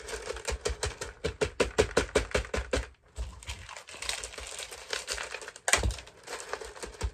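LECA clay pebbles clicking and rattling against each other and a plastic pot as they are packed around a plant's roots: a quick run of sharp clicks, then a denser crackle with one harder knock near the end.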